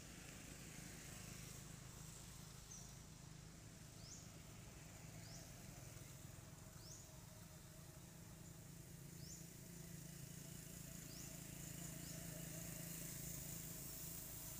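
Quiet forest ambience: a small bird gives short, high, rising chirps every second or two over a faint low rumble.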